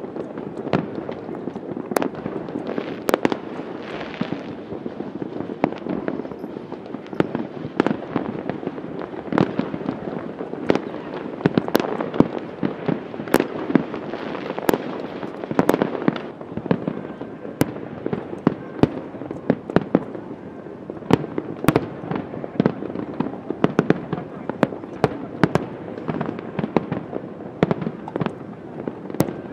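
Fireworks display: a steady din of crackling and rumbling from aerial shells, with many sharp bangs at irregular intervals, several a second at the busiest moments.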